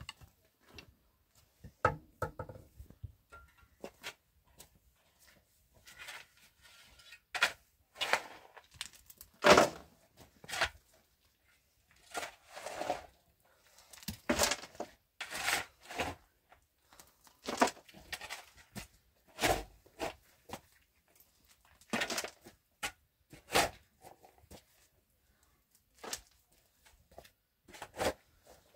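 Steel shovel scraping and digging into stony earth, with loads of soil thrown into a metal wheelbarrow: irregular scrapes and thuds every second or two.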